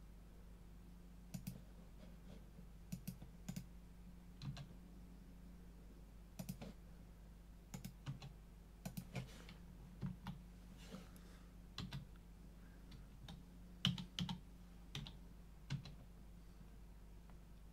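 Scattered computer keyboard key presses and mouse clicks, often in pairs, with gaps of a second or so between them, over a faint steady electrical hum.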